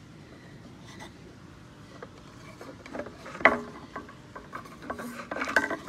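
A cane scraping and rattling against the plastic inside a pond filter's media chamber while fishing out a loose piece of pressure pipe, with a sharp knock about three and a half seconds in and a run of scrapes and knocks near the end.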